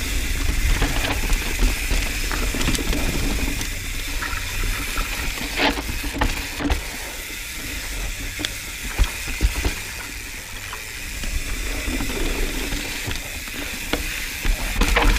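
Mountain bike descending a dirt singletrack: tyres rolling over dirt with frequent short knocks and rattles of the bike over roots and rocks, rear freehub ratcheting, and wind rumble on the helmet-mounted camera microphone.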